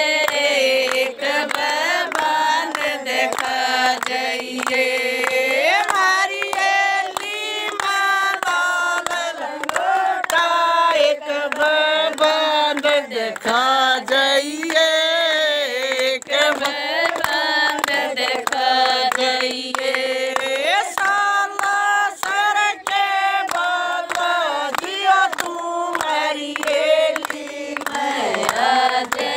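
A group of women singing a Hindi devotional bhajan together in unison, with repeated sharp hand-claps keeping time throughout.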